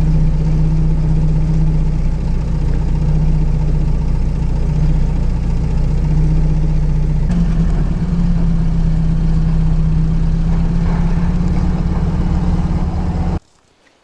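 Car engine and road noise while driving, a steady low drone that changes tone about seven seconds in and cuts off abruptly near the end.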